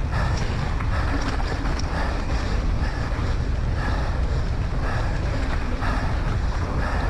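Wind buffeting the microphone in a steady low rumble during a fast downhill ride, with the rider's heavy breathing coming about once a second and occasional light clicks and rattles.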